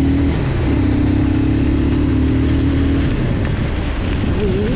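Motorcycle engine running steadily while riding on a wet road, under a broad rushing noise. The engine note breaks off briefly about half a second in, falls away about three seconds in, and wavers up and down near the end.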